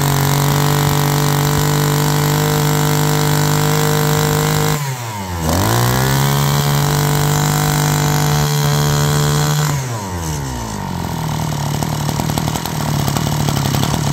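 Maruyama brush cutter's small engine running at high speed. About five seconds in the revs dip briefly and climb back, and near ten seconds the throttle is released and it settles to a quieter idle.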